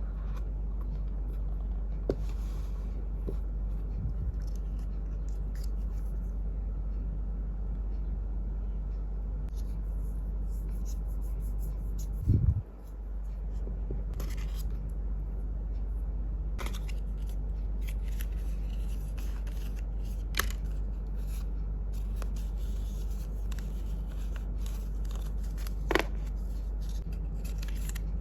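Hands handling a phone and its packaging at close range: scattered small taps, clicks and scrapes, with one low thump about twelve seconds in, over a steady low hum.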